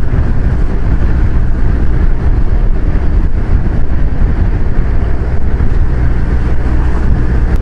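Kawasaki Versys 1000's inline-four engine running steadily while riding at town speed, mixed with wind rumble on the helmet-mounted microphone.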